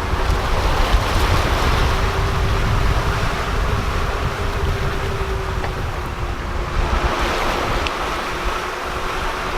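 Water rushing along the hull of a sailing yacht under way at about 8 knots, with wind buffeting the microphone and a faint steady hum.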